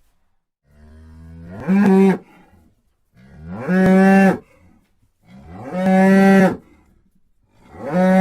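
Cow mooing: four long moos about two seconds apart, each sliding up in pitch and then held steady.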